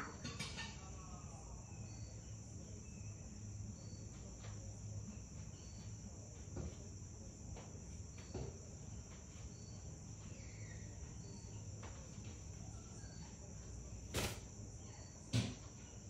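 Steady high-pitched chirring of insects, with a faint short chirp about every two seconds. About 14 s in, an African grey parrot flaps her wings in a brief loud flutter, and there is a second, smaller flutter a second later.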